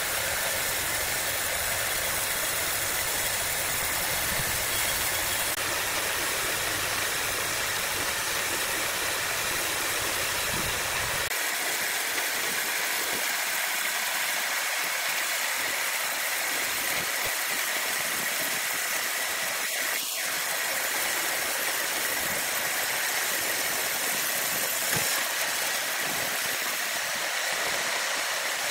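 Giant horizontal band sawmill running, a steady even machine noise. Its low rumble falls away about eleven seconds in.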